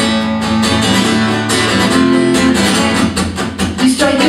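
Acoustic guitar strummed in steady rhythm: a live instrumental passage of a pop song between sung lines.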